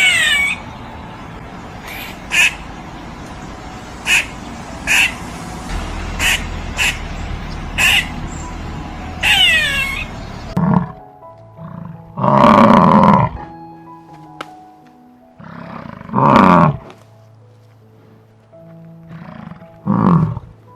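Animal calls over background music: a run of short, high calls falling in pitch, about one a second, then three louder drawn-out calls, roughly four seconds apart.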